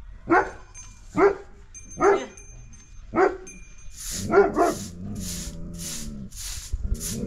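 A dog barking, five or six sharp barks about once a second. From about four seconds in, a rhythmic rasping noise about twice a second takes over, with a low hum under it.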